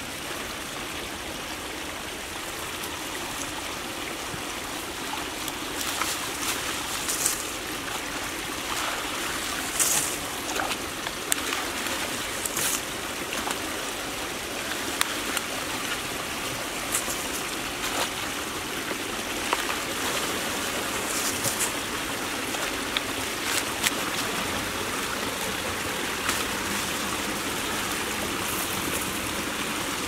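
Ditch water flowing steadily through a beaver-clogged drainage culvert, with brief sharper splashes every few seconds.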